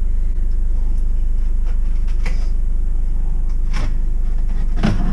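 A few separate knocks and scrapes as parts of a stove (firebricks and lining) are handled and lifted out, over a steady low hum.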